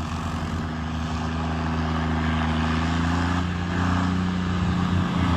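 Tractor diesel engines running hard under load during a tug-of-war pull, a steady, loud engine sound whose pitch shifts slightly about three and a half seconds in.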